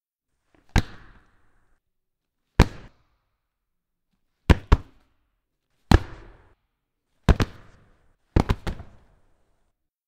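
Punch sound effects: sharp single hits with short decaying tails, separated by silence, about eight in all. A quick double hit comes midway and a rapid run of three near the end.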